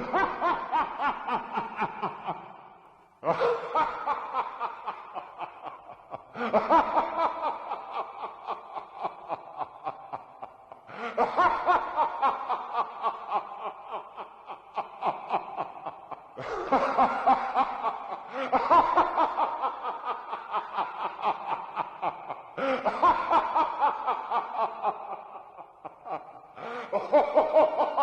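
Evil laugh sound effect: bouts of rapid 'ha-ha-ha' pulses, each starting loud and trailing off, repeated with a new bout every few seconds.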